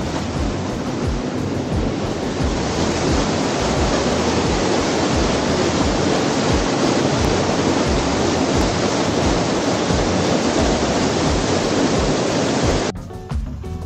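Steady rushing water of a mountain river, cutting off suddenly near the end.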